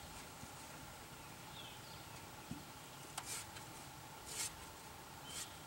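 Quiet background with a couple of brief scratches, about three and four and a half seconds in: a small hand tool working epoxy putty into a seam of an aluminum boat hull.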